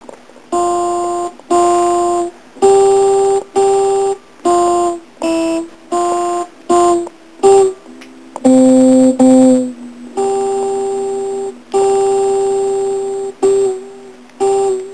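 A simple melody of about fourteen electronic keyboard notes, each held at an even level for half a second to a second and then cut off cleanly, with a lower note about eight seconds in and two longer held notes near the end.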